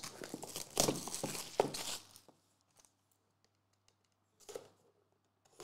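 Plastic shrink wrap being torn and crinkled off a trading card box, a rustling with a few sharp crackles for about two seconds. It then goes quiet apart from a brief faint scrape about four and a half seconds in, as a box cutter slits the box seal.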